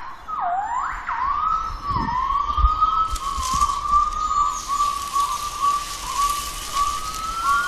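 Western black crested gibbon song: loud whooping notes that dip and then sweep sharply up, followed by a fast run of short notes that quickens and rises in pitch near the end. A steady high hiss runs under the calls from a few seconds in.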